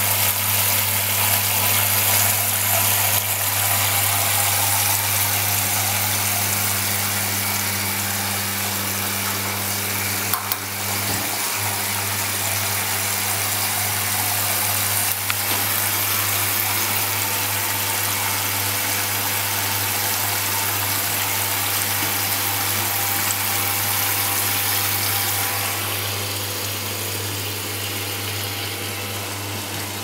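Eudora Luftikus 455S washer-dryer running: a steady low hum under an even hiss, with a click or two. The hiss eases near the end.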